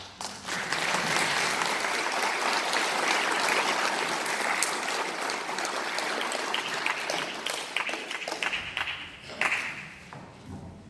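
Audience applause breaking out as the orchestra's last note stops, full and steady at first, then thinning to scattered claps after about eight seconds.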